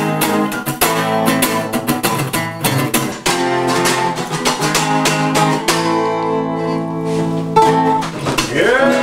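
An acoustic guitar and a resonator guitar strumming chords together. About two-thirds of the way in, a chord is left ringing for a second or two before the strumming picks up again. A short rising-and-falling cry comes in right at the end.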